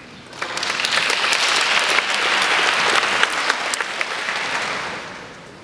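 Audience applauding: many hands clapping, starting about half a second in and dying away by about five seconds in.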